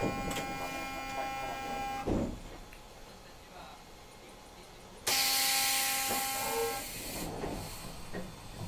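Toyohashi Railway class 3200 tram's air horn sounding twice: a steady blast of about two seconds at the start, then a shorter one with a strong hiss of air about five seconds in.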